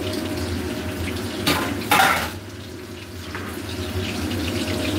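Kitchen noise: a steady rushing sound with two sharp clatters of kitchenware about a second and a half and two seconds in, the second one louder.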